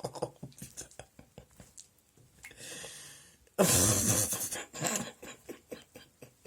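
A cat falling into bathwater: a sudden loud splash about three and a half seconds in, after scattered small knocks and a short hiss, then dripping knocks as it settles.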